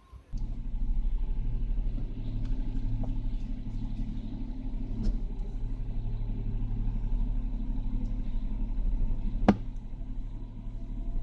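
Car engine running steadily, a low rumble that starts suddenly just after the start, with one sharp click about nine and a half seconds in.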